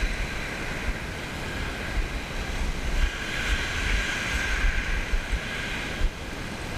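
Surf breaking and washing up a shingle beach, swelling a little about halfway through, with gusts of wind buffeting the microphone.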